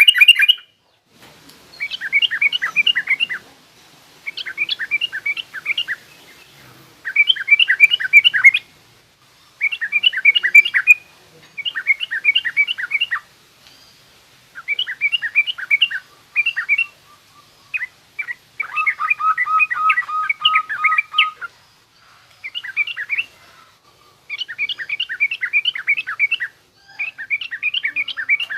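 Yellow-vented bulbul (trucukan) singing its coarse, chattering 'ngriwik' song in repeated bursts of rapid notes, each burst a second or two long with short pauses between.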